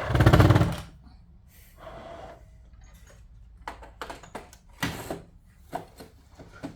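A short, loud rattling burst about a second long, then a run of sharp clicks and knocks from parts of a sewing machine being handled and set.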